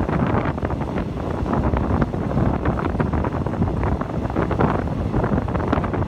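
Wind buffeting the microphone: a steady rumble with constant crackle.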